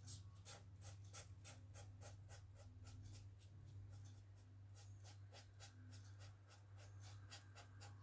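Felt-tip marker scratching on sketchbook paper in quick back-and-forth strokes, about four a second, as it colours in an area. Faint, with a low steady hum underneath.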